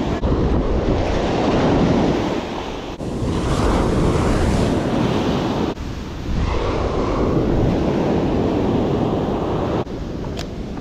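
Ocean surf breaking and washing up the sand in repeated swells, with wind buffeting the microphone.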